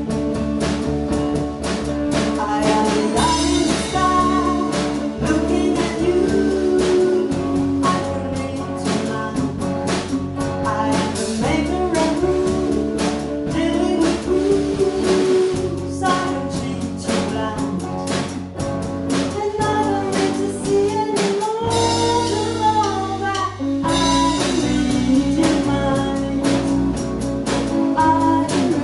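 A band song: a sung lead voice over electric guitar, bass and a drum kit keeping a steady beat.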